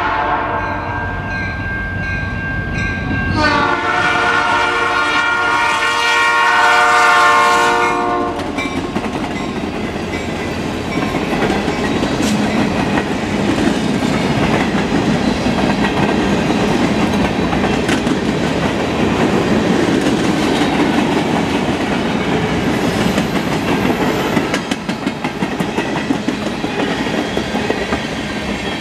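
Two blasts of an EMD SD60 diesel locomotive's air horn at a grade crossing: a short one at the start, then a long, loud one from about 3.5 s to 8 s. After the horn stops, a long string of freight cars (center-beam flat cars, then tank cars) rolls by with steady wheel-on-rail noise and clickety-clack over the rail joints.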